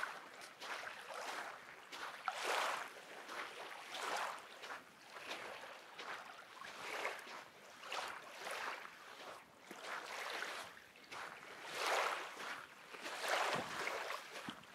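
Small lake waves washing onto a black sand beach, each one swelling and falling back every second or two.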